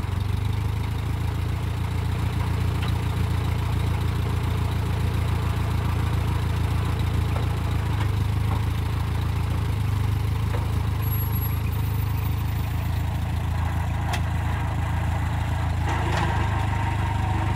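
Old farm tractor's engine running steadily, a constant low drone as it works its front-end loader.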